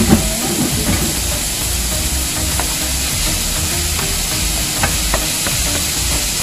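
Ground pork and onion sizzling steadily in a frying pan while a wooden spoon stirs and scrapes through it. A short knock comes right at the start, and two sharp taps of the spoon on the pan come about five seconds in.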